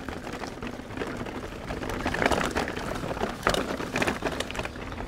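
Specialized Enduro mountain bike riding down a rough dirt trail: tyre noise with irregular rattling and knocks from the bike, busier from about two seconds in.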